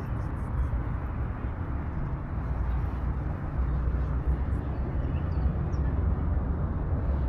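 Steady low rumble of city traffic in the background.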